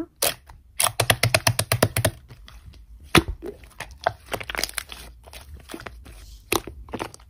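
Pink slime squeezed and stretched by hand, crackling and popping: a fast run of clicks about a second in, then scattered pops and crackles.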